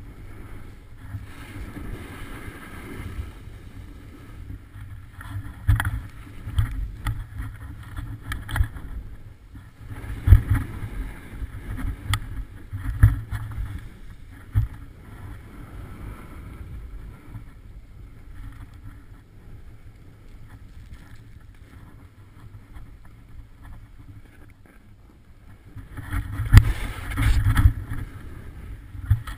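Wind buffeting the microphone of a body-mounted action camera while touring skis run and scrape over snow, an uneven rumbling hiss. It swells louder about ten seconds in and again near the end.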